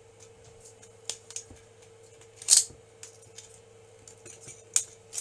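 Printed plastic support pieces being snapped and picked off a 3D-printed part: a series of sharp clicks and snaps, the loudest about two and a half seconds in.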